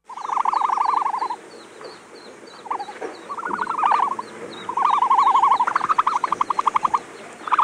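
Animal calls played as the ostrich's sound: fast pulsed trills, each about a second long, repeated with short pauses over faint high chirps. They are not the low boom of an adult ostrich and sound more like a chorus of trilling frogs.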